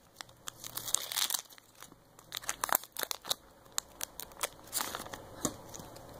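Foil wrapper of a Pokémon TCG booster pack crinkling in irregular crackles as the cards are pulled out of the torn-open pack.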